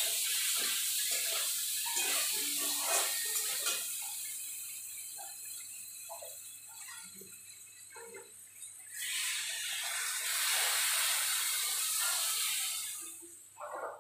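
A spatula scrapes and knocks against a steel wok over a frying hiss. About nine seconds in, water poured from a large plastic jug goes into the wok with a loud, even hiss lasting about four seconds, then stops.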